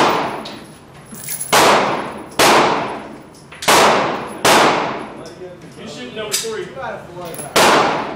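Gunshots fired in a series: about six shots, in uneven pairs, each followed by a long echoing, ringing decay.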